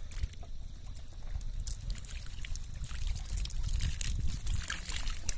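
Hands working a wet cast net full of small fish on watery mud: irregular squelching, dripping and small splashes, with many short wet clicks and crackles.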